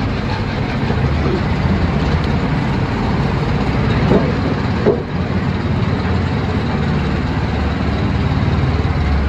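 Engine of an off-road buggy running steadily as it drives, heard from the seat, with two brief louder sounds about halfway through.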